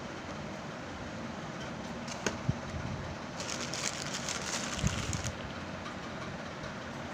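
Packaging being handled over a steady background hiss: a couple of clicks, then about two seconds of crinkling from about three and a half seconds in, with a soft knock near the end of it.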